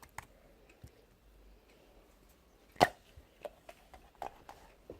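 Scattered small clicks and taps in a small room, with one sharp, louder knock almost three seconds in.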